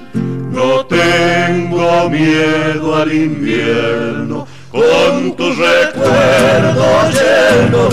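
Male vocal quartet singing in close harmony over strummed acoustic guitars, with a brief break about halfway through before a long wavering held note.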